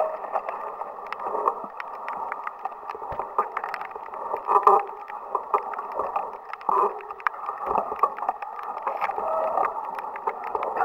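Mountain bike and rider moving through brush on a dirt trail, heard through the rider's camera: a steady muffled rustle of branches and leaves brushing past, with scattered clicks and knocks from the bike and a few louder knocks around the middle.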